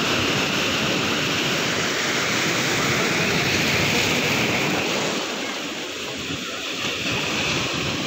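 Sea surf washing over rocks: a steady rush of breaking water that eases slightly after about five seconds.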